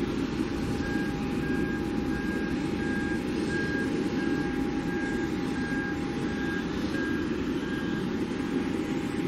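A small Cessna business jet's turbofans at takeoff power through the takeoff roll and lift-off: steady engine noise with a steady whine. From about a second in, a short beep repeats about twice a second alongside it.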